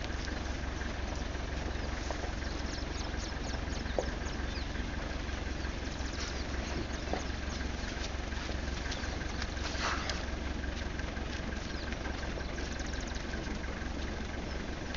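Vehicle engine idling, a steady low rumble, with scattered short high chirps over it.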